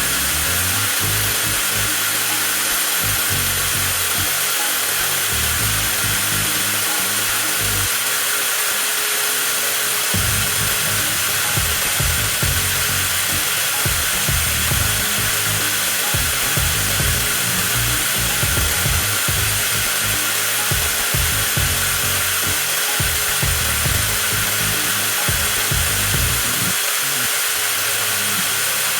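Cordless 20V angle grinder running steadily with a continuous high motor whine.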